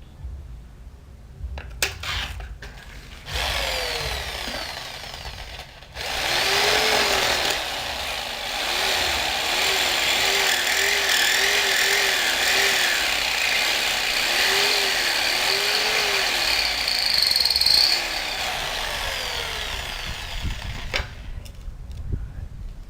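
Small handheld power tool running at high speed while cutting holes. Its pitch repeatedly sags and recovers as it bites into the material. It starts a few seconds in, pauses briefly, runs on, then winds down and stops near the end.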